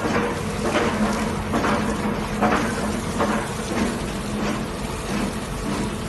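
Jet grouting drill rig at work: a steady engine hum under irregular rushes of hissing, water-like noise.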